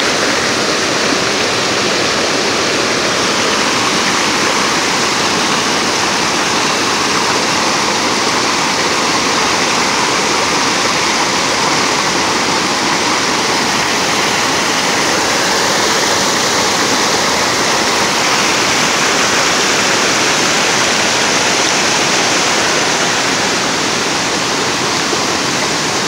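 Fast mountain river rushing over rocks in whitewater rapids: a loud, steady rush of water.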